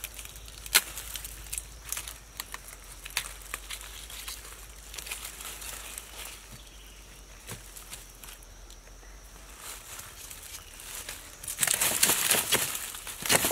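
Crumbling rotten wood being broken apart by hand: scattered light cracks and crackles, turning to louder, denser crunching and tearing near the end.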